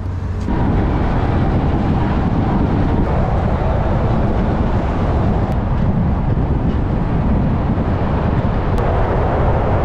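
Steady rush of wind and road noise from a car driving at highway speed.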